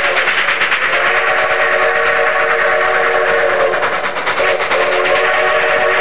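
Narrow-gauge steam locomotive's whistle blowing long, held chords, breaking off briefly just after the start and again a little past four seconds before sounding again.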